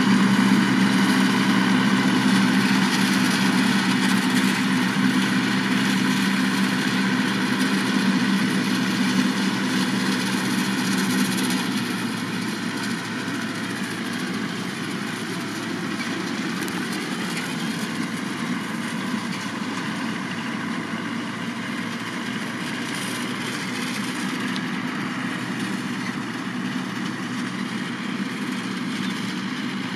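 Tractor engine running under load while driving a straw chopper that blows chopped straw into a trolley: a steady mechanical drone with a strong low hum, growing fainter about twelve seconds in as the rig moves away.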